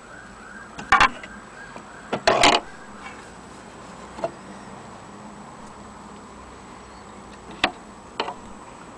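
Clicks and knocks from handling a portable wind-up gramophone's tone arm and sound box on a spinning 78 rpm record. The loudest knocks come about a second in and around two and a half seconds in, with smaller clicks later. A faint wavering tone fades out about three seconds in.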